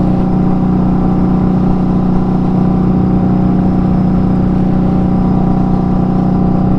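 Indian Scout Bobber's V-twin engine running at a steady cruising speed, its note holding even with the throttle held by a throttle lock.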